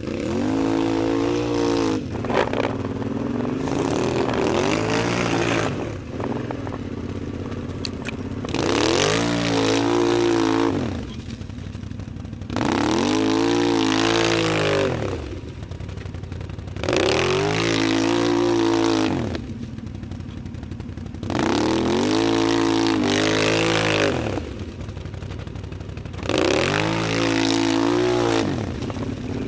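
ATV engine revving up and dropping back in about seven bursts, one every four seconds or so, with idling between, as a quad churns through a deep mud hole.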